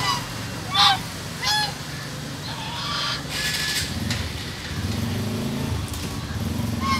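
White Chinese geese honking: two short, loud honks falling in pitch about a second in, then fainter calls. A brief rushing noise comes about three and a half seconds in, over a steady low rumble.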